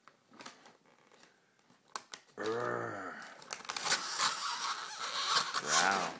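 Wrapping paper crinkling and tearing as a present is pulled open, starting about two and a half seconds in after a few faint rustles. A person's drawn-out voice sounds at the start of the tearing and again near the end.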